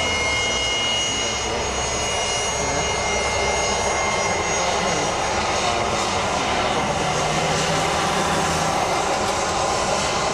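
Fokker 100 airliner's twin rear-mounted Rolls-Royce Tay turbofans running as it rolls along the runway: a steady jet noise with a high whine that fades about a third of the way in, leaving a steady rush.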